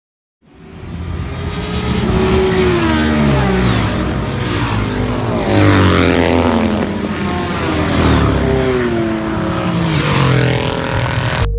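Classic racing motorcycles passing one after another on the track, several in succession, each engine's pitch dropping as it goes by.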